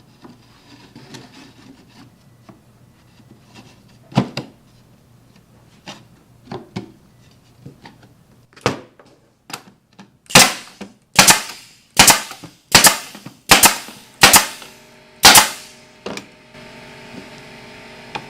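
Light knocks of cabinet panels being fitted, then a pneumatic 1/4 inch crown stapler firing about eight staples into the plywood, sharp loud shots roughly one every three-quarters of a second. A steady hum comes in near the end.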